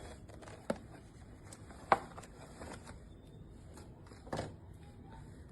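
Three sharp plastic clicks from handling a Kodak Ektar H35 half-frame film camera, the loudest about two seconds in.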